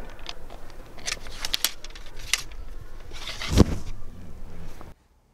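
Ramrod being worked down the bore of a Pedersoli Pennsylvania long rifle to seat the ball on the powder: repeated scraping and clicking of the rod in the barrel, with a heavier knock about three and a half seconds in. The sound cuts off suddenly near the end.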